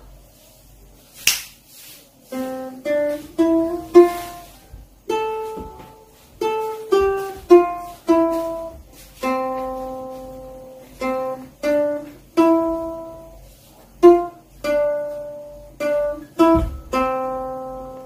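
Ukulele picked one note at a time: a slow melody of short plucked notes and longer ringing ones.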